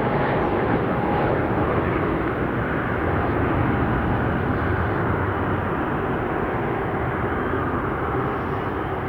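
Jet airliner engine noise, a loud steady rush that eases slightly near the end.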